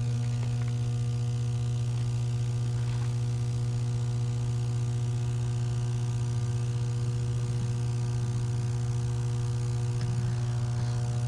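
Substation power transformer humming: a loud, unchanging low hum with a ladder of steady overtones above it.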